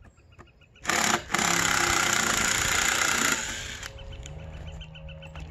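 Cordless power driver running a screw into the end of a cherry log: a loud run of about two and a half seconds with a short break near the start, winding down after about three seconds.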